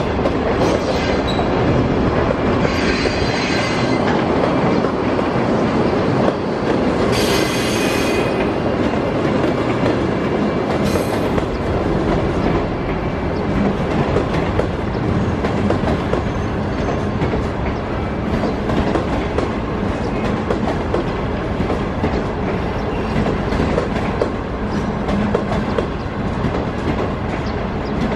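China Railway passenger coaches rolling past over station trackwork: steady rumble of steel wheels on rail with clickety-clack over the joints. Several short, high-pitched wheel squeals come in the first dozen seconds.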